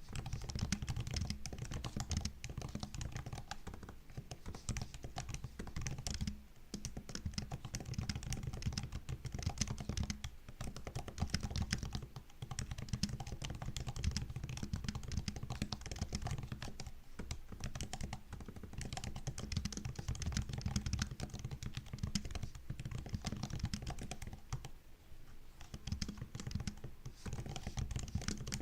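Typing on a MacBook keyboard: a quick, dense run of key clicks, broken by a few short pauses.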